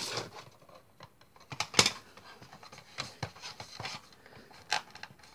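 Plastic torch casing being handled and pulled apart: one sharp click a little under two seconds in, then a few softer clicks and light scraping.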